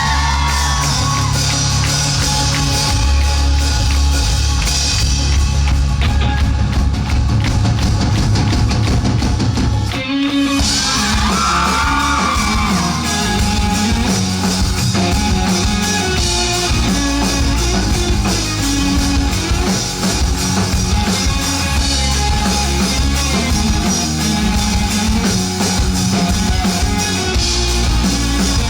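Rock band playing live in a club, with drums, bass and guitars at full volume and singing, and shouts over the music. About ten seconds in the band stops for a moment, then comes back in.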